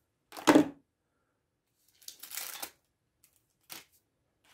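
An MRE pouch being handled and shaken: a single solid knock, then a brief plastic rustle and a short click. The contents sound remarkably solid, as if packed hard rather than loose.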